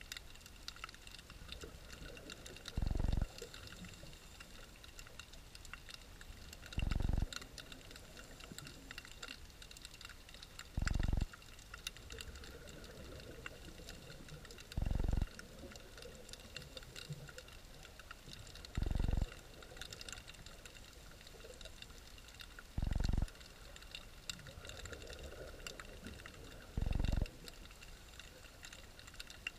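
Underwater ambience: a constant fine crackle of tiny clicks, with a short, low burst of rushing noise every four seconds, seven times.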